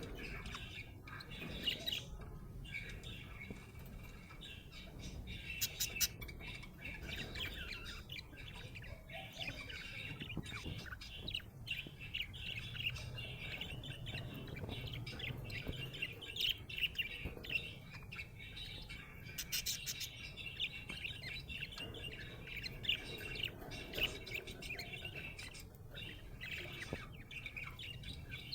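Budgerigar chattering and chirping continuously, a busy stream of rapid warbles, chirps and occasional squawks, the sound of a contented budgie.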